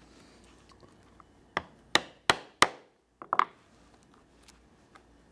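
Mallet striking a 1/8 inch thonging chisel to punch lace holes through layered leather: a quick run of about six blows, the four loudest about a third of a second apart, then two lighter taps.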